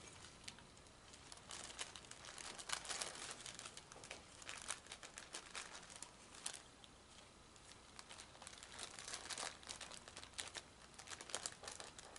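Faint crinkling and scattered light clicks as gloved hands handle plastic and push igniter wires into a rocket motor's igniter cup.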